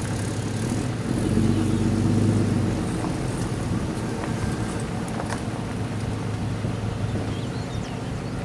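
Steady low hum of an engine running, swelling louder for about a second and a half shortly after the start.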